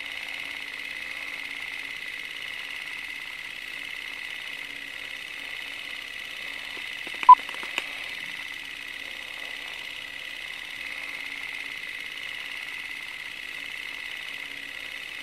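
Steady whirring hiss of a running film projector, with a short sharp beep about seven seconds in followed by a small click.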